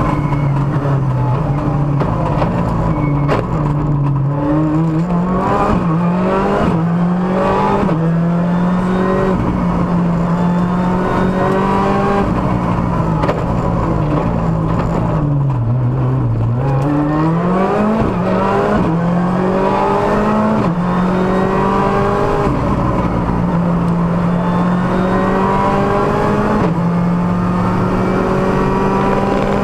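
Ford Fiesta R5 rally car's turbocharged 1.6-litre four-cylinder engine heard from inside the cabin, driven hard. Its pitch climbs in a string of quick gear changes and falls twice, about four and sixteen seconds in, before climbing again.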